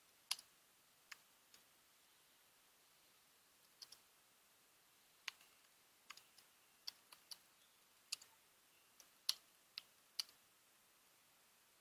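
Faint, irregular clicks of computer keyboard keys being typed on, single keystrokes with short pauses between them.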